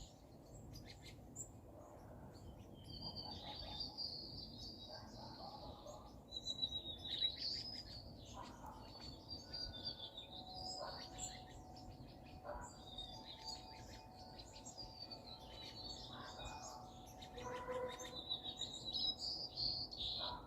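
Songbirds chirping and twittering, with several short, high calls overlapping and following one another without a break.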